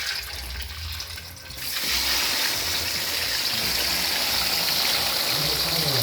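Eels frying in hot oil, a steady sizzling hiss that swells sharply about two seconds in and then holds.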